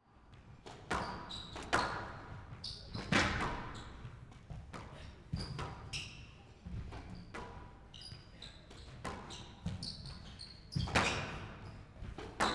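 Squash rally: the ball cracks off rackets and the court walls at irregular intervals, with short high squeaks from players' shoes on the court floor, in a large reverberant hall.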